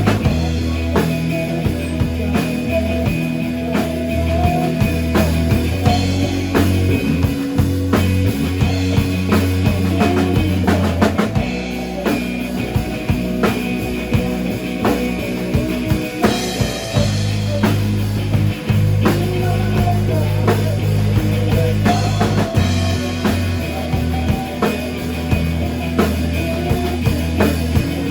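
Rock music with a drum kit keeping a steady beat over bass and guitar; the low bass line drops out for a few seconds midway and then comes back in.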